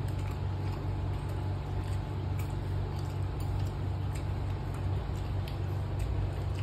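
Steady low mechanical hum with a slight regular pulsing, under faint scattered clicks and smacks of people eating by hand from plates.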